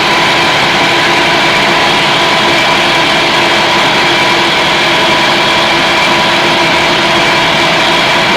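A size-70 bakso meat-grinding machine running steadily, loud and even, with a few constant whining tones over the running noise.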